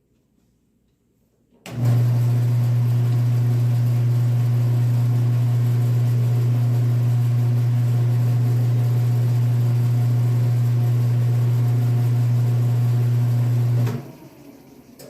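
Wood lathe's electric motor switched on about two seconds in, running with a loud, steady hum, then cutting off suddenly near the end.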